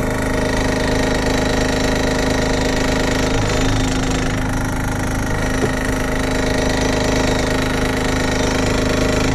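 Tractor engine running at a steady speed, pulling a DSV spring-tine vibrocultivator through the field.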